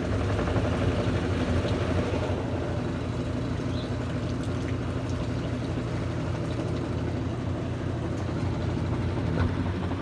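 Consul Facilite 10 kg (CWC10) washing machine on its spin cycle with a load of cloths: a steady, very quiet motor hum with even low tones that does not change.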